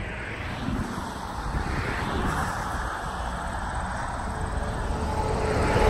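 Steady road traffic noise, with a vehicle getting louder near the end.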